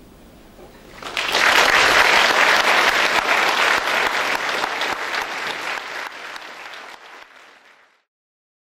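Audience applauding. The clapping breaks out about a second in, after the orchestra's final chord has died away, slowly thins, and is cut off suddenly near the end.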